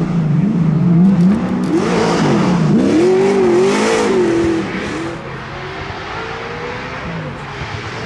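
Chevrolet V8 of a Firenza Can Am rally car with side-exit exhaust, revving up and down as the car passes close by, loudest about four seconds in. From about five seconds in it is quieter, its revs climbing steadily as it pulls away.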